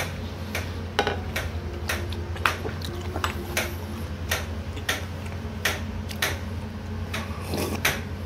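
Tableware clinking at a meal: metal chopsticks and a spoon tapping against ceramic bowls and plates in irregular light clicks, over a steady low hum.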